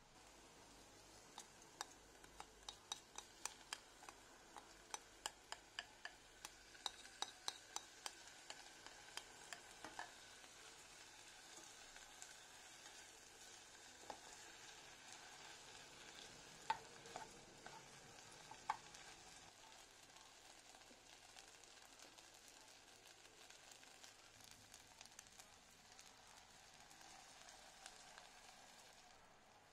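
Chopped vegetables and rice sizzling faintly as they are stir-fried in a nonstick saucepan, the utensil clicking against the pan in quick strokes, with a few sharper knocks midway.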